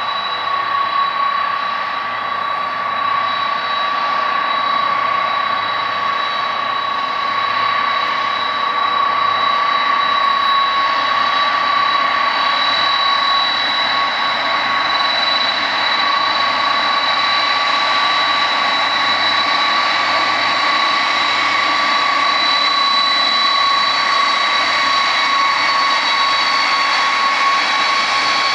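The General Electric CF6-50 turbofans of a McDonnell Douglas MD-10 (converted DC-10-30) freighter at taxi power: a steady jet whine with two high steady tones over the engine rush. It grows slightly louder over the first several seconds.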